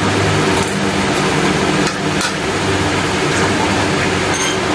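Steady motor hum of an electric fan, with a hiss of moving air. A few light clinks of serving tongs against dishes come through it, the last near the end.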